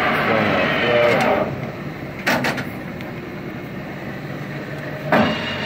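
Clausing Colchester 13 x 40 geared-head engine lathe running with the threading feed engaged. It quietens about a second and a half in, and sharp knocks come about two seconds in and again near the end.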